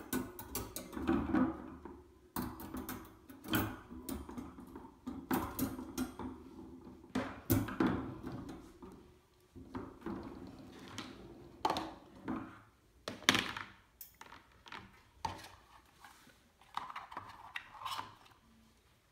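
Chrome-plated steel wire dish rack being fitted together on a wooden table: irregular metal clinks, rattles and knocks as the wire tiers are pushed into place, with plastic clicks from the drainboard and cutlery cup near the end.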